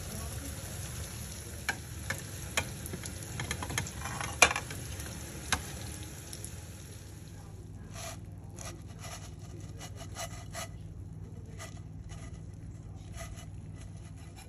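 Small kilka fish shallow-frying in a little oil in a frying pan: a steady sizzle with a few sharp clicks in the first half. About halfway through the steady hiss drops away, leaving scattered crackles.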